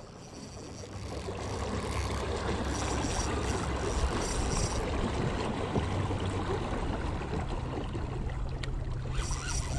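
Steady rushing and splashing of water around a fishing kayak.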